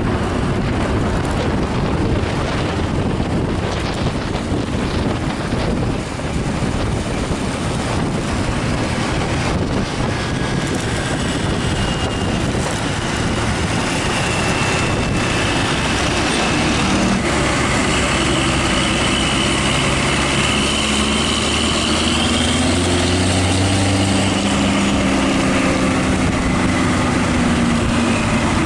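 An intercity bus's rear-mounted engine running under load close by, over steady wind and road noise. From about halfway through, its note becomes clearer and climbs in pitch as the bus pulls uphill.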